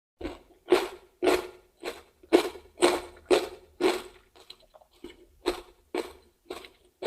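Crunchy chewing of raw vegetables, a steady rhythm of about two crunches a second, loudest in the first four seconds and softer after.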